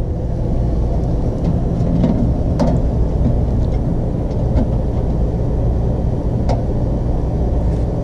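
A steady low mechanical rumble and hum, like a running engine or motor, with a few light knocks and clicks as the RV water heater's outer access door is fitted back on and pressed shut.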